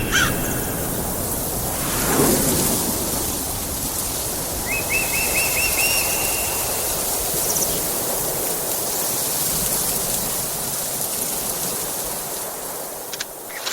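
Steady rain-and-storm ambience sound effect: an even hiss of rain, with a low rumble swelling about two seconds in and a quick run of high chirps about five seconds in.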